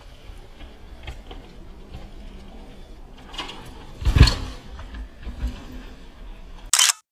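Downhill mountain bike being ridden down a rough trail, picked up by a bike- or helmet-mounted GoPro: a steady rattle and rush of riding noise, with one heavy thump about four seconds in and a short loud burst just before the sound cuts off suddenly.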